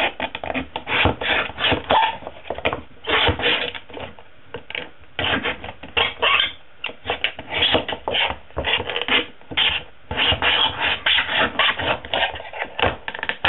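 A heavy O1 tool-steel fixed-blade knife cutting around the thin steel wall of a tin can, metal scraping on metal in a run of quick, uneven strokes.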